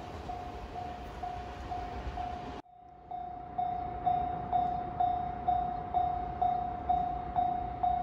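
Japanese railway level-crossing warning bell ringing steadily, an electronic ding about twice a second. For the first two and a half seconds it is mixed with the rumble of a 413 series electric train running past and away. After an abrupt cut the bell is heard on its own, louder and clearer.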